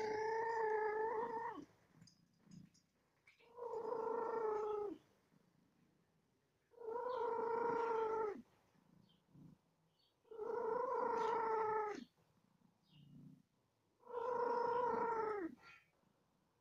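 A cat calling over and over: five long drawn-out calls, each holding one steady pitch and dropping at the end, repeating about every three and a half seconds.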